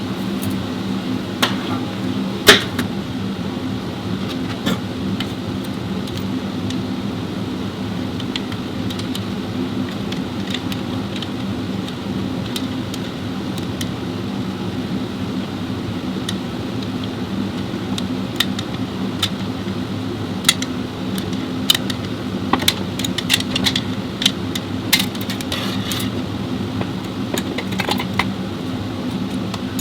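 A steady machine hum with scattered sharp metallic clicks and clinks, the loudest about two and a half seconds in and a run of them in the second half.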